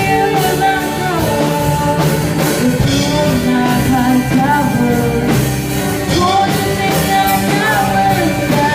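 Music: an acoustic version of a worship song, with a melody line that glides between notes over a steady beat.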